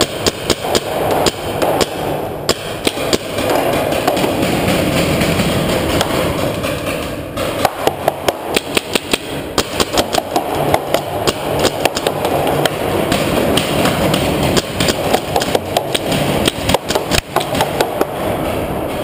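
Paintball markers firing in the underground cave field: sharp pops, often in quick strings of several a second, over a steady din.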